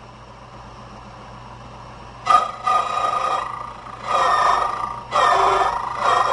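HPC Code-A-Key machine's cutter starting about two seconds in and whining as it cuts the first notch into a key blank. It comes in three stretches with short dips between.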